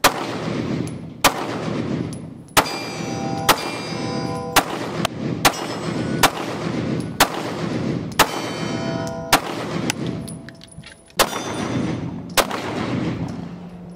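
Smith & Wesson Shield Plus pistol firing about a dozen shots at roughly one per second, with a short pause about ten seconds in. Several shots are followed by steel targets ringing with a clear pitched clang.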